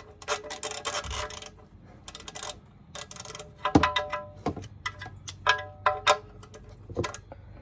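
Hand wrench working a bolt: bursts of rapid clicking with sharp metal-on-metal clinks that ring briefly, the loudest about four, five and a half, six and seven seconds in.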